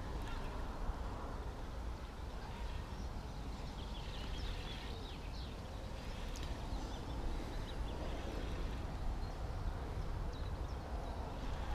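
Outdoor ambience: a steady low rumble of wind on the microphone, with faint bird chirps and a few light clicks.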